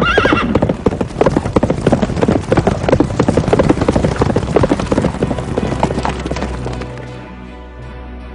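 Horses galloping off at speed, a dense clatter of hoofbeats that fades away after about six seconds, over background music. A horse whinnies right at the start.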